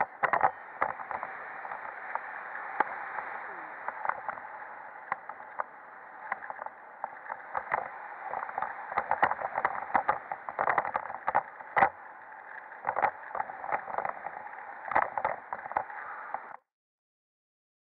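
Airflow rushing over the camera microphone in flight under a paraglider, with frequent irregular gusty buffets. The sound cuts off abruptly to silence near the end.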